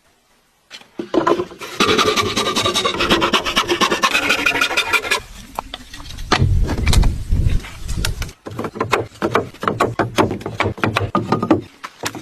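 A hand tool working wood in quick, repeated rasping strokes, with a heavier, deeper stretch in the middle.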